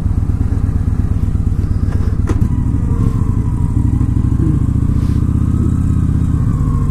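2015 Victory V-twin motorcycle with a sidecar running under way, a steady engine pulse with a brief click a little over two seconds in and a change in the engine note about four and a half seconds in.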